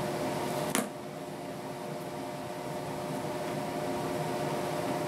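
Steady mechanical hum with several fixed tones, like a running fan or air conditioner. One sharp click about a second in, after which the hum dips and slowly comes back up.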